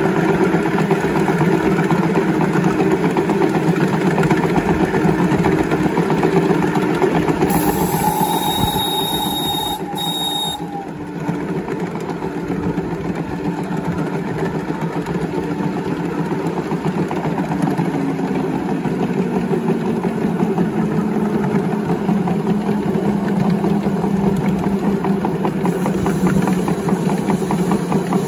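5-inch gauge live-steam model of an LNER B1 locomotive running under steam, its exhaust coming in rapid, steady beats, with a brief steady tone about eight seconds in.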